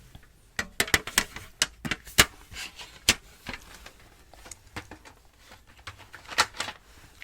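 A series of sharp clicks and taps at an uneven pace, bunched in the first half and again a little past the middle.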